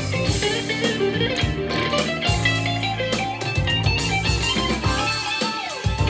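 Luxars S-G62 electric guitar being played: picked notes in quick succession, with low notes held underneath.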